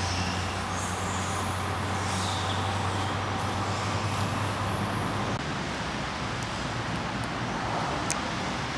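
Steady outdoor background rumble like distant road traffic, with a low steady hum that drops away about five seconds in and a few faint high chirps over it.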